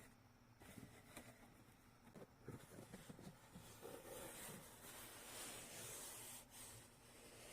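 Gift packaging being handled and opened: soft, irregular rustling and crinkling with a few small taps, fuller and steadier in the second half.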